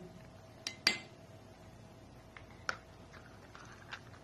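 A metal spoon clinking against glass bowls and a food tin as wet cat food is served. There is one sharp clink about a second in, then a few lighter clinks.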